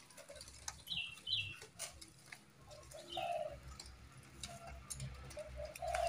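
Zebra doves (perkutut) giving a few short, soft coos, mixed with brief high falling bird chirps about a second in, again a moment later, and near the middle.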